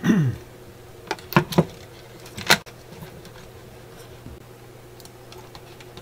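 A few sharp clicks and knocks, three close together about a second and a half in and a louder one near two and a half seconds, as multimeter test probes are handled and set down on the workbench, over a steady low hum.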